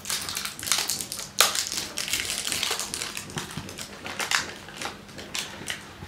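Scissors snipping and clear plastic wrap crinkling as it is cut away from a new siren speaker: a string of irregular rustles and clicks, with one sharper snap about one and a half seconds in.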